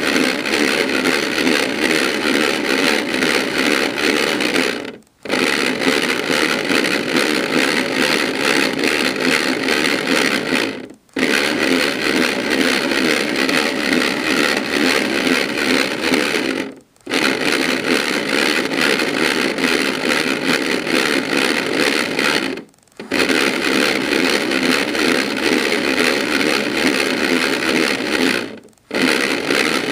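Battery-powered AEG Electrolux Lavamat toy washing machine running its wash cycle, its motor and drum loud and whirring. The sound stops for about half a second roughly every six seconds, then starts again.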